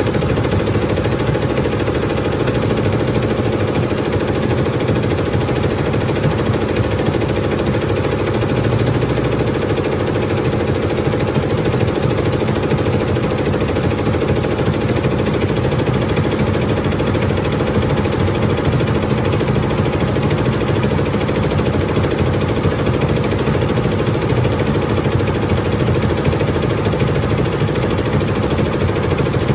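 Multi-needle computerized embroidery machine running steadily at speed, its needle stitching rapidly through the hooped T-shirt fabric with a constant mechanical chatter.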